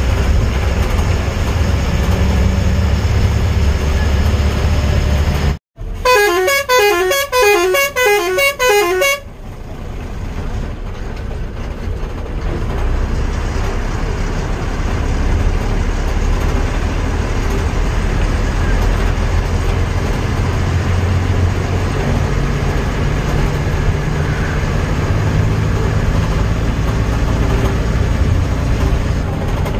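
Vehicle running along a road with a steady low engine and road rumble. About six seconds in, after a brief drop-out, a multi-tone musical horn plays a quick repeating run of notes for about three seconds, then the rumble carries on.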